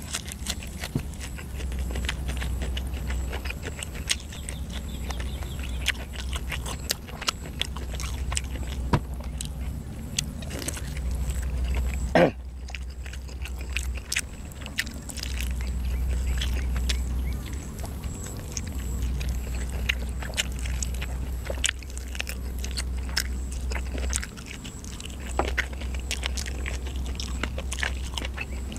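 Close-miked mukbang eating: chewing and biting grilled chicken and raw greens, with many sharp wet mouth clicks and smacks and one louder smack about halfway through. A low rumble comes and goes underneath.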